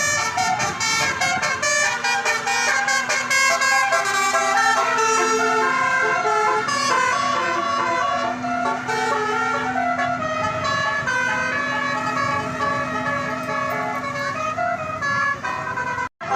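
Tour bus's multi-tone telolet horn playing a long melody of quickly changing stepped notes over a steady low note held through most of it. It cuts off abruptly near the end.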